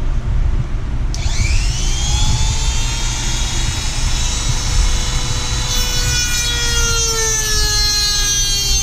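Pioneer 650 two-stroke chainsaw idling, then opened to full throttle about a second in, its engine pitch falling slowly over the following seconds.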